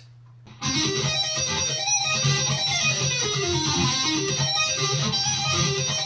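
Guitar music: a fast riff with quick runs of notes going down and up, starting about half a second in.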